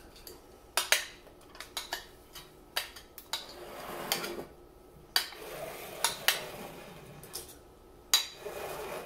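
Metal spoon scraping and clinking against a ceramic bowl as a thick, creamy dairy mix is spooned out, a series of irregular sharp clinks.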